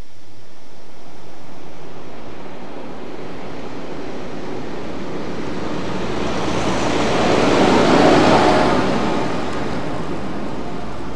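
A tractor driving past on a village road, its rushing noise swelling to a peak about eight seconds in and then fading, over a steady outdoor rumble.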